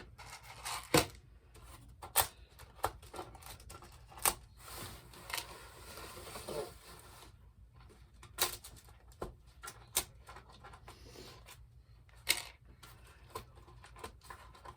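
Irregular light clicks and taps of small craft items being handled on a tabletop, with a soft rustling stretch around the middle.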